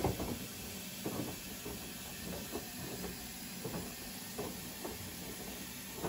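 A steady hiss with a few faint knocks.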